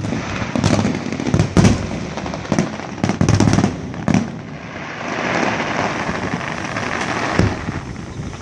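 Fireworks going off: a rapid run of sharp bangs and crackles in the first four seconds, then a hissing stretch and one more bang near the end.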